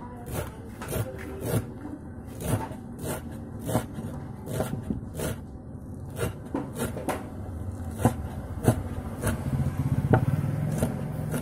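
A kitchen knife chopping spring onions and celery leaves on a wooden cutting board: sharp, irregular chops about one to two a second. A low rumble under it grows a little louder near the end.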